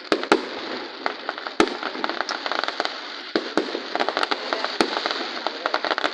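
Fireworks bursting: several sharp bangs scattered among dense, continuous crackling.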